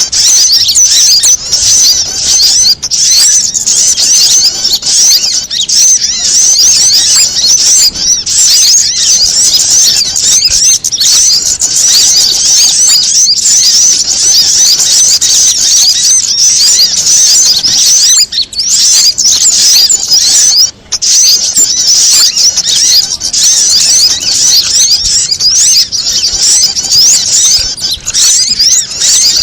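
Dense, unbroken chattering of many small songbirds: rapid, high-pitched squeaky chirps layered over one another without pause. It is a bird-lure mix of agitated prinia, sogon, kamande and sunbird calls, used to draw wild small birds in.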